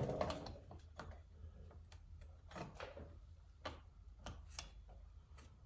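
Faint, irregular clicks and light taps from handling chainsaw parts (the guide bar and chain), about eight scattered through a quiet background.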